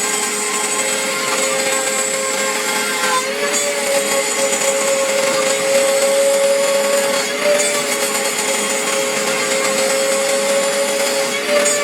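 CNC router spindle cutting acrylic sheet: a steady high whine over a cutting hiss. Its pitch shifts slightly a few times.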